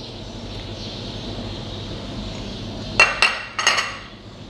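Glass dishware clinking as the glass bowl that held the mango knocks against the blender jar and is set down: two short clusters of sharp clinks about three seconds in, over a steady low hum.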